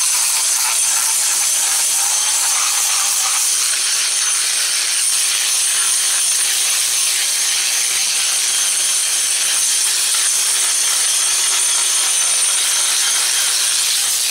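Electric angle grinder with a diamond bit running steadily against a concrete step, grinding down the edges of old paint to feather them smooth. Its steady motor whine carries the grit of the surface being ground.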